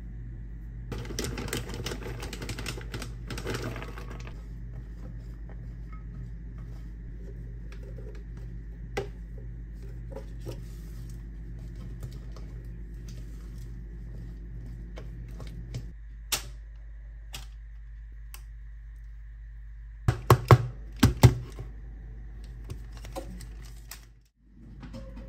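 Kitchen baking sounds: a utensil stirring and tapping in a glass mixing bowl, with light clicks and scrapes. There is a busier stretch of rustling from about one to four seconds in, and a cluster of sharp knocks near the end, over a steady low hum.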